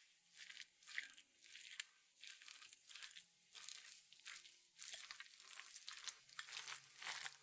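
Faint, irregular soft scraping and rustling strokes of food preparation at a kitchen counter, one or two a second.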